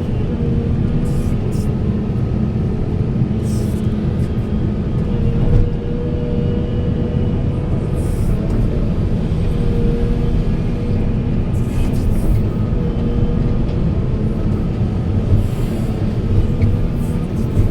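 Large diesel excavator engine running steadily under load, with a few short knocks and hisses from the working machine.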